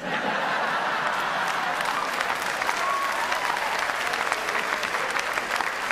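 A large theatre audience breaks into applause with laughter, many hands clapping at once. It starts suddenly and stays steady.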